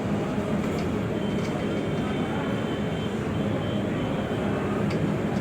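Brother S-7180A industrial single-needle lockstitch sewing machine running steadily without a break, stitching satin fabric.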